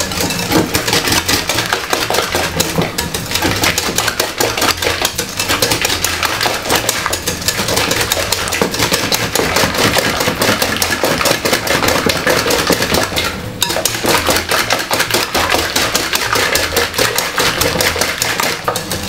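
Banana cake batter being mixed in a bowl: a utensil clattering rapidly and without a break against the bowl.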